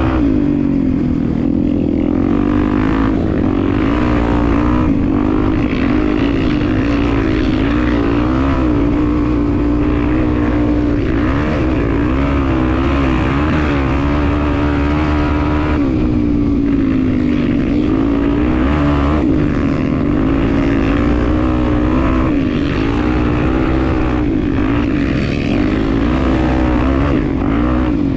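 Honda Tornado 250 single-cylinder four-stroke motorcycle engine running under way, its note rising and falling with the throttle.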